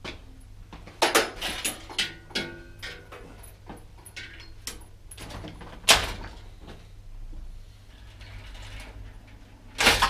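A bicycle clattering and knocking as it is handled and hung in a workshop repair stand: a run of rattles and knocks, then a sharp knock about six seconds in and another near the end.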